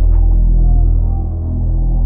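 Dark ambient background music: a deep, steady drone with a few faint sustained notes above it.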